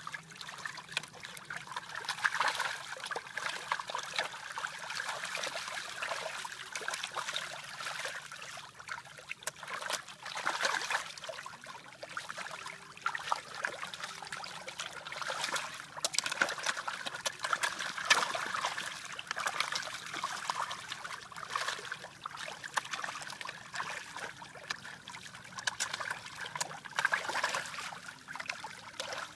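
Water trickling and splashing, with many irregular small splashes.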